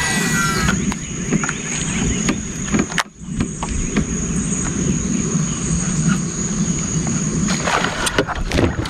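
Insects droning with a steady high whine over a rumbling outdoor background, with a few sharp knocks near the end.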